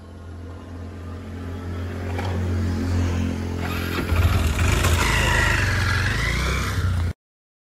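Scooter engine running and revving as the scooter pulls away, growing louder and stepping up about four seconds in, then cutting off abruptly near the end.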